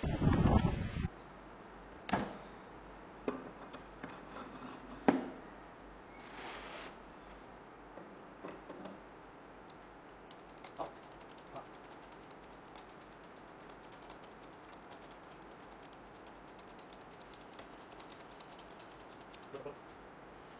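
A brief loud burst at the start, then a few sharp metal knocks. Later comes faint, rapid ticking as a hydraulic bottle jack is hand-pumped and its ram rises.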